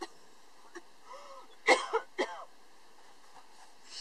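A person coughing and clearing their throat: three short, harsh bursts in quick succession about halfway through, with a faint wavering voiced sound just before.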